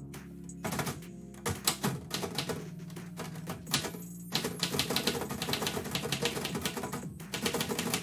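Manual typewriter keys striking the platen in irregular bursts of rapid clicks, with the densest run in the second half, over steady background music.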